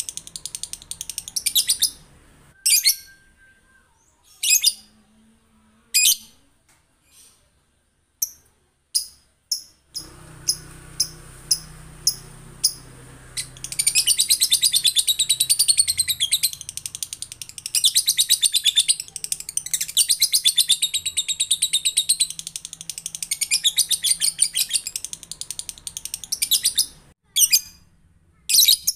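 Male lovebird giving its ngekek call: long runs of rapid, high-pitched chattering. Brief separate chirps come first, then from about halfway through the chatter runs on for many seconds at a time.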